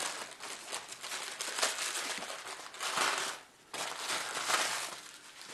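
White tissue paper crinkling and rustling as a gift is unwrapped by hand, with a brief pause a little past halfway.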